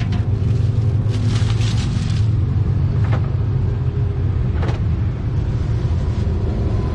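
Steady low rumble of street traffic, with a few short clicks from handling at the cart.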